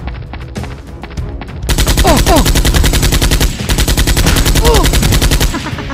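Automatic gunfire sound effect, a rapid burst of shots that starts nearly two seconds in and lasts almost four seconds, dubbed over background music.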